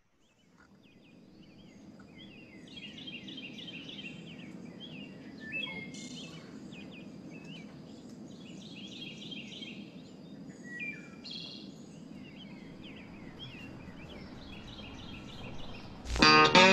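Several birds chirping and trilling over a steady outdoor background that fades in at the start, with a thin steady high tone underneath. Plucked guitar music comes in suddenly near the end, much louder than the birds.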